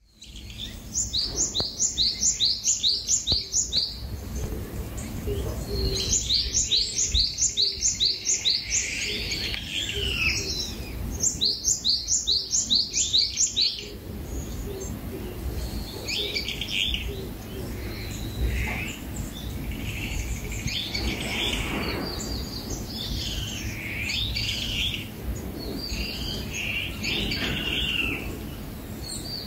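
Songbirds singing: three times in the first half a bird repeats a quick run of high, falling notes, about three a second, and after that several birds give varied chirps over a low steady rumble.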